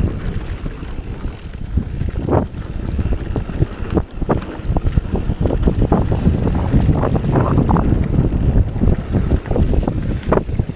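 Wind buffeting an action camera's microphone over the rumble of a mountain bike's tyres on hard-pack dirt, with frequent short knocks and clatters from the bike over bumps on a fast downhill run.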